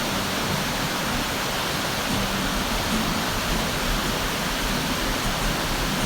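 Waterfall pouring into a pool, a steady, dense rush of falling water.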